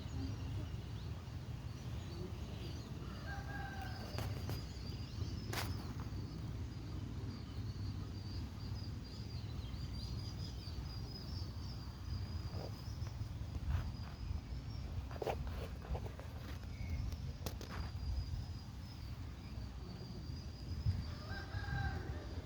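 A rooster crows twice, about three seconds in and again near the end, over a steady low rumble and a continuous high chirring.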